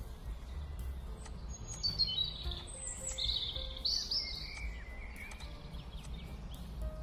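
Background music track with birds chirping: a run of high, quick chirps and falling whistles about two seconds in, lasting about three seconds, over a steady low rumble.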